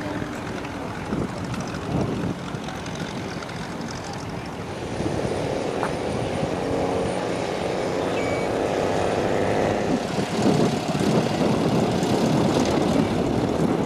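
Propeller aircraft engine running, growing louder about five seconds in and staying strong to the end.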